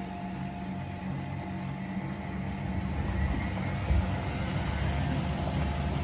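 Miele Novotronic W925 front-loading washing machine running, a steady hum with a low drum rumble that grows louder about three seconds in. A single short knock comes near four seconds.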